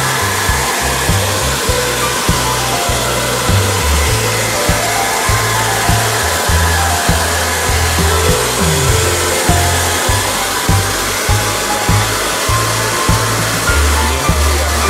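Hand-held hair dryer blowing steadily while drying a dog's coat, with background music and its stepping bass line underneath.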